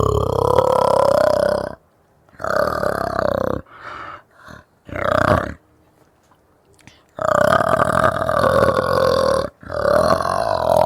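Orangutan vocalizing: a series of drawn-out calls, each lasting one to two seconds, with a few short calls in the middle and brief pauses between them.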